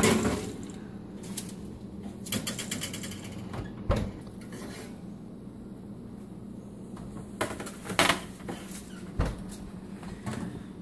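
A metal baking sheet knocking and scraping onto an oven rack at the start, with a quick rattle of the rack and the oven door shutting. Later come more clanks as the door opens and the tray is pulled back out, over a steady low hum.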